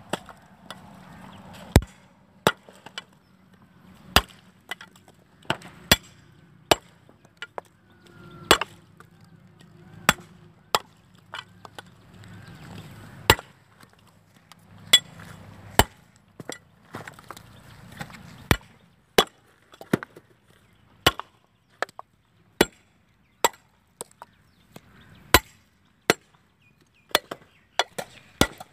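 Coconuts being split open with a heavy knife: a steady run of short, hard cracks, about one a second, each blow sharp and separate.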